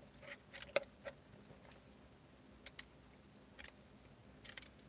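Faint sipping of a drink through a straw from a paper cup, with a scatter of small clicks and ticks.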